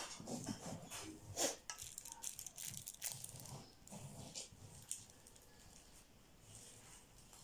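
Hands patting and smoothing sticky rice (malagkit) level in a tray: a faint run of quick light clicks and rustles that thins out after about five seconds.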